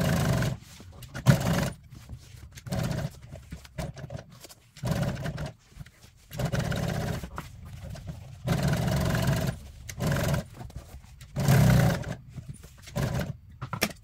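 Industrial sewing machine stitching a foam-backed vinyl seat panel in short runs of about a second, stopping and starting again many times.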